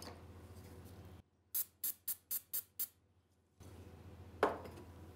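Six sharp clicks in quick succession, about four a second, with all background hum gone around them, then a single louder tap near the end: small metal and plastic parts of a diecast model car body being handled.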